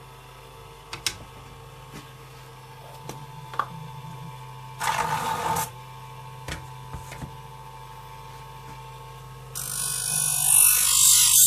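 Small bench grinder running with a steady hum, with light metal clicks as the scissor-sharpening jig is adjusted and a short hiss about halfway. Near the end a hairdressing scissor blade is put to the grinding wheel, giving a loud, high grinding hiss.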